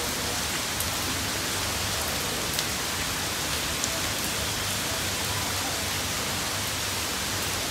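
Steady hiss of rain falling on a hard open terrace floor, with a few sharp ticks of single drops.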